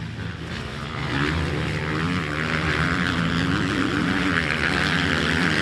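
Motocross bike engines running, a steady buzz whose pitch rises and falls as the throttle is worked; it gets louder about a second in.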